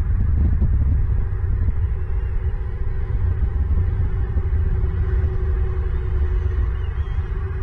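Steady low rumble with a faint hum above it.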